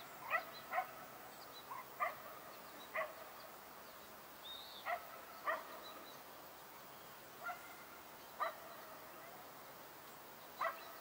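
California quail calling: short, sharp single notes repeated at irregular intervals, about a dozen in all, with one higher, slurred note near the middle.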